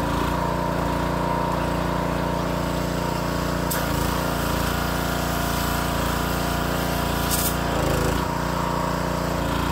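Wilks USA TX625 petrol pressure washer's 7 hp four-stroke engine running steadily. From about four seconds in, water sprays from the lance onto the path until a little past seven seconds, and the engine note shifts briefly near eight seconds as the spray stops.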